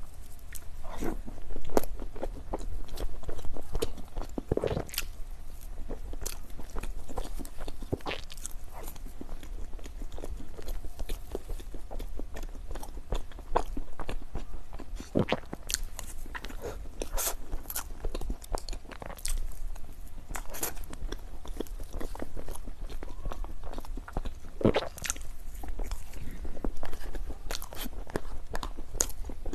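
A person biting and chewing dessert close to the microphone: irregular crunchy bites and wet chewing clicks.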